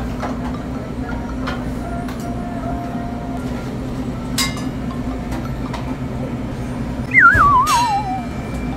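Steady low drone of a moving vehicle heard from inside, with a couple of faint clicks. Near the end a short, wavering whine falls in pitch for about a second; it is the loudest sound.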